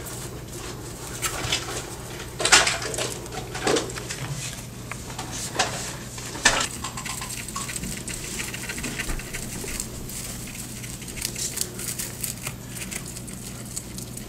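Skinny pig (hairless guinea pig) rummaging in and eating dry hay: irregular rustles and crackles of stiff hay stalks and paper bedding, with small crunching clicks from chewing, the loudest rustles in the first half.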